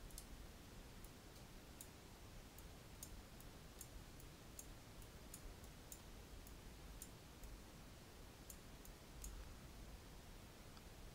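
Faint computer mouse button clicks, about twenty at irregular spacing, over quiet room tone with a low hum.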